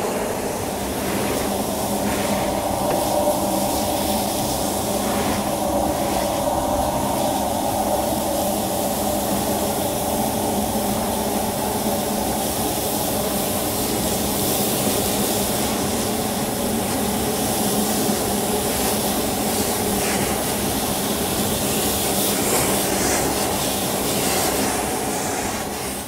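Nilfisk VHC200 EXP air-powered industrial vacuum running at full suction: a loud, steady rush of compressed air through its venturi, drawing spilled sugar up the hose.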